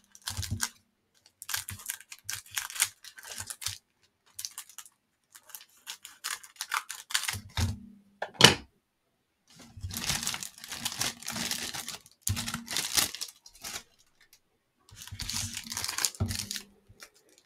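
Cellophane wrapper of a baseball card pack crinkling and tearing as it is handled and opened, in several spells of rustling. One sharp snap about eight seconds in.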